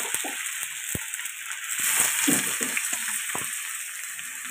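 Pieces of boiled buffalo tripe sizzling in hot oil with cumin in a wok, just tipped in: a steady frying hiss, louder around two seconds in, with a few small clicks and knocks.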